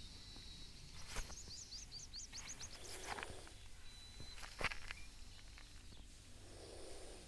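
Faint outdoor sounds: a small bird gives a quick run of about ten high chirps, two sharp clicks come about a second and then about four and a half seconds in, and a short breathy burst falls near three seconds.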